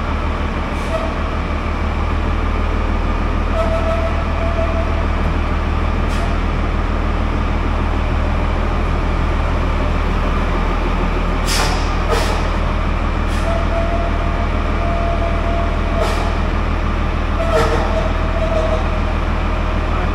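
Diesel engine of a piece of heavy equipment running at a steady idle, with a few sharp metallic clinks in the second half and short whines coming and going.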